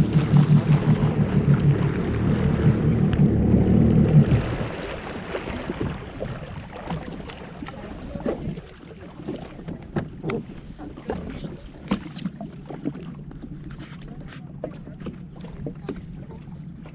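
Jet ski engine running loudly, then dropping away sharply about four seconds in. After that come water lapping and splashing, with scattered small clicks and knocks over a faint low hum.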